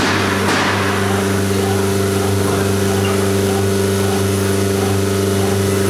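Tigertec TR408tk CNC router with tangential knife running: a steady machine hum made of a few constant low tones, with a short rushing swell right at the start.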